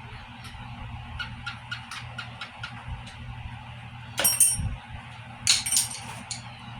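A quick run of light ticks, about five a second, then two short bursts of bright metallic clinking over a low steady hum.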